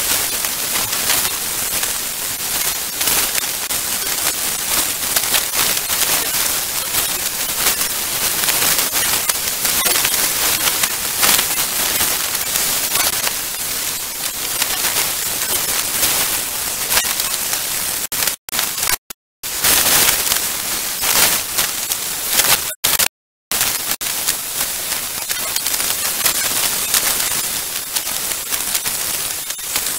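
Hurricane wind and heavy rain on a security camera's microphone: a dense crackling hiss. It cuts out to silence twice for about a second, about two-thirds of the way through.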